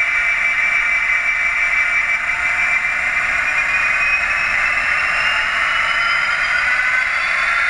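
OO gauge model diesel locomotive running with its coaches, giving a steady whir of motor and wheels on the rails, with a whine that slowly rises in pitch from about two seconds in as the train picks up speed.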